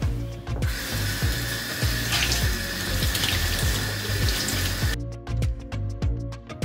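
Water running from a bathroom vanity tap onto a sponge held under the spout. It starts about half a second in and is shut off abruptly about five seconds in, over background music with a steady beat.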